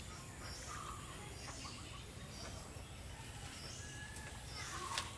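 Birds chirping, short high calls repeated every half second or so over a steady low rumble, with a sharp click about five seconds in.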